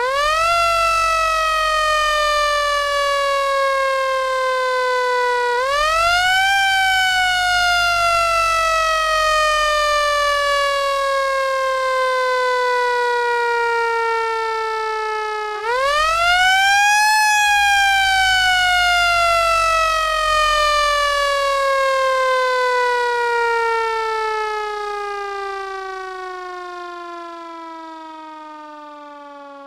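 Fire-engine siren sound effect wailing: three times it winds up quickly, then glides slowly down in pitch, and the last long fall fades away near the end.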